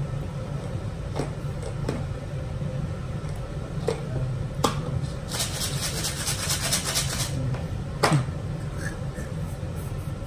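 A plastic candy packet crinkling for about two seconds as it is handled, over a low steady hum, with a few short knocks before and after.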